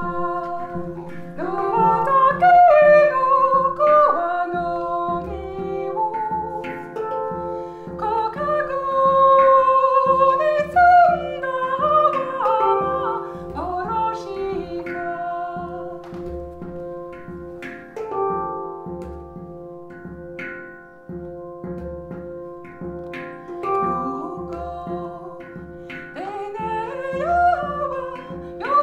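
Music: a voice singing gliding, held notes over a sustained drone and a steady low pulse, loudest a few seconds in and again near ten seconds.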